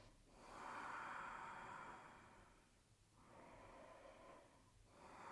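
A woman breathing slowly and deeply, faint: three long breaths, each a soft rush of air lasting one to two seconds.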